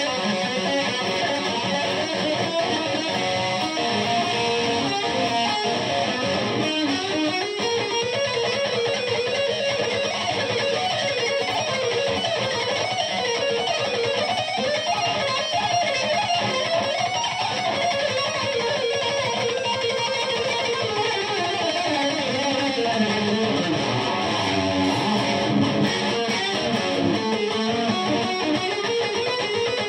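Electric guitar played lead, fast runs of notes that climb and fall in long arcs, shred-style.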